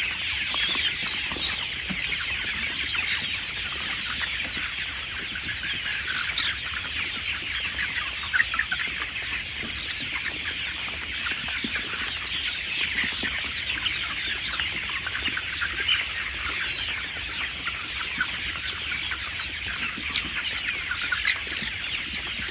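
A flock of young chickens, about 37 days old, peeping and clucking continuously in many overlapping high-pitched calls.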